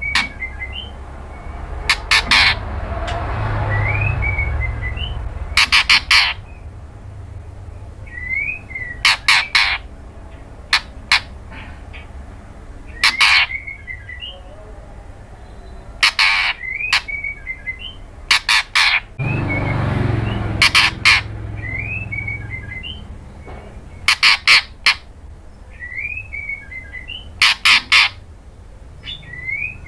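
Female white-rumped shama calling: loud, harsh calls in quick groups of two to four, repeated every few seconds, with short rising whistled notes between them. A low rumbling noise comes in twice, a few seconds in and again past the middle.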